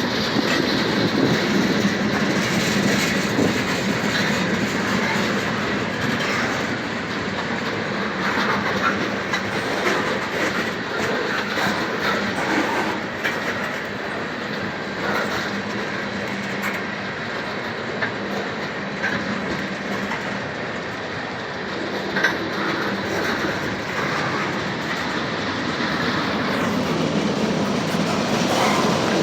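Norfolk Southern freight train rolling past in a steady rumble of rail cars, with occasional wheel clicks on the track.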